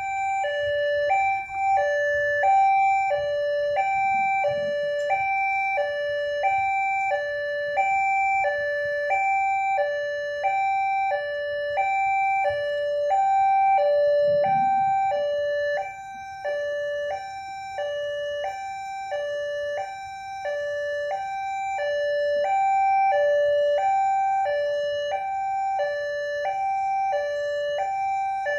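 Indonesian railway level-crossing warning alarm sounding continuously, an electronic two-tone signal alternating between a high and a low note, one high-low pair a little under every second: the crossing is closed for an approaching train.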